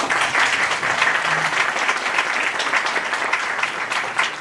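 An audience applauding: dense clapping that holds steady and begins to thin out near the end.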